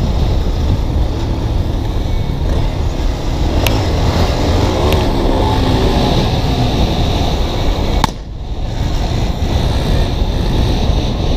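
Yamaha XTZ dirt bike and other motorcycles running as they ride down a street, heavily mixed with wind buffeting on the camera microphone. Engine pitch rises and falls a few seconds in, and the sound dips sharply for a moment about eight seconds in.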